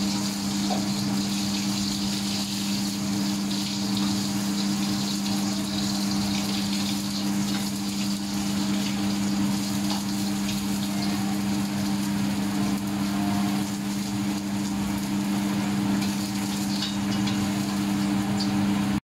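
Egg frying in hot oil in a wok: a steady sizzle over a steady low hum.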